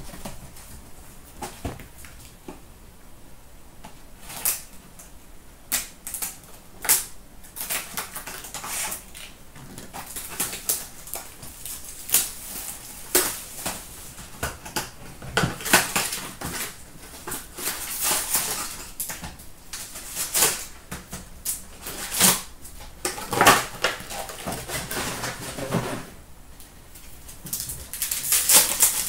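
Sealed trading-card box and foil packs being handled and opened: irregular clicks and taps of cardboard with crinkling rustles of foil wrappers, and several longer crinkles in the second half as packs are torn open.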